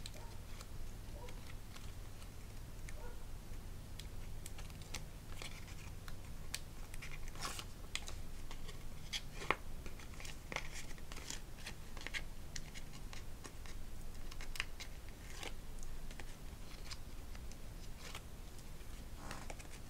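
Faint paper handling: the backing liner being peeled off strips of double-sided adhesive tape on cardstock, heard as scattered small scratches and rustles over a low steady hum.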